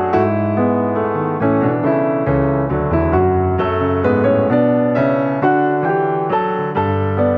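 Background piano music: a steady stream of notes and chords.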